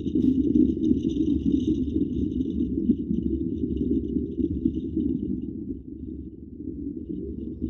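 Subaru car driving over a rough dirt road: a steady, muffled low rumble of tyres, engine and suspension with rattling, easing a little about six seconds in.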